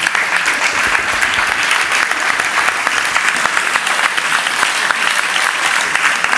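Crowd of spectators applauding steadily, many hands clapping at once.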